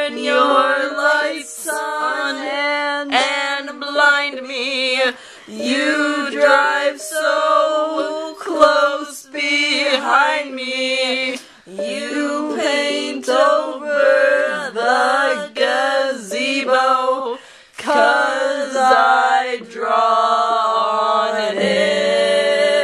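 Three young women singing an improvised song together, their voices in overlapping lines phrase after phrase.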